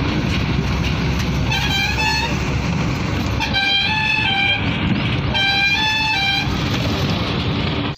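Steady rumble of a moving bus's engine and road noise heard from inside the cabin, with three blasts of a multi-tone musical vehicle horn, each a short run of stepped notes, about one and a half, three and a half and five and a half seconds in.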